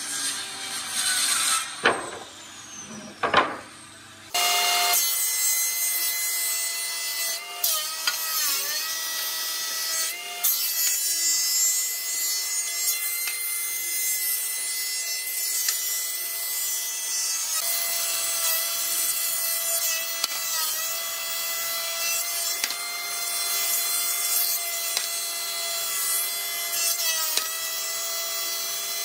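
Thickness planer running steadily, its motor pitch sagging briefly several times as boards feed into the cutter head under load. It is preceded in the first seconds by a handheld circular saw cutting through a board and winding down.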